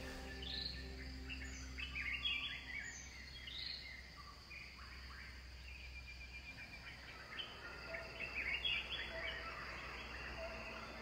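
Birds chirping in two busy spells of short calls, over a faint steady low hum.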